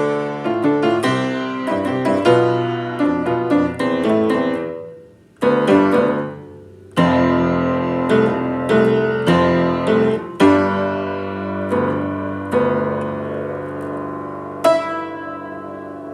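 Solo piano music: melody notes and chords struck and left ringing. The playing breaks off briefly twice, about five seconds in and again near seven seconds, then carries on with sustained chords.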